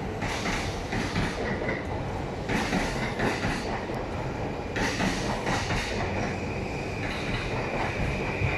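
JR East E235 series electric train departing, its wheels clattering over the rail joints in repeated runs as the cars pass. A high, steady whine sets in over the last couple of seconds.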